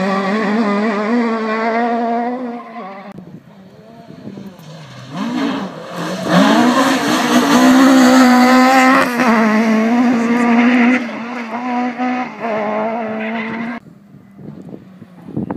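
Rally cars at full throttle on a tarmac stage. One engine revs hard and fades in the first few seconds. Another arrives about six seconds in and passes close, rising in pitch and dipping at each gear change, then cuts off near the end.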